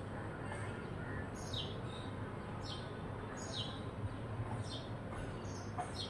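Rose-ringed parakeet calling: about six short, high calls, each falling in pitch, at irregular intervals.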